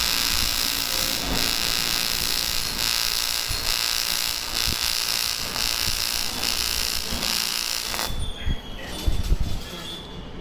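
AC TIG welding arc on aluminium: a steady buzzing hiss that cuts off sharply about eight seconds in, followed by a few low knocks.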